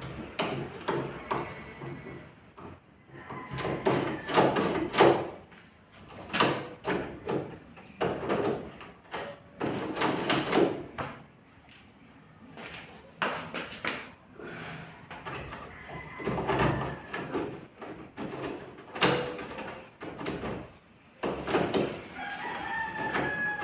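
Irregular knocks, clicks and scraping of hand work on door-lock hardware as the lock is installed, loudest a few seconds in. Near the end a rooster crows.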